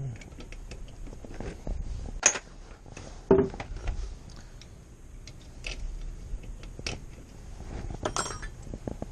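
Hand tools and metal brake parts clinking and knocking during a motorcycle rear brake pad change: scattered light clicks, with two louder knocks about two and three and a half seconds in and a quick run of clinks near the end.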